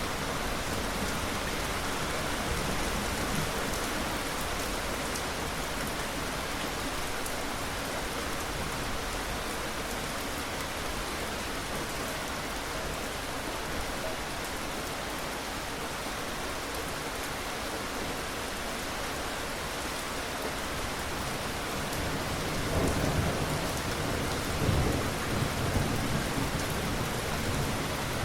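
Steady rain, with a low rumble of thunder rolling in about 23 seconds in and fading over a few seconds.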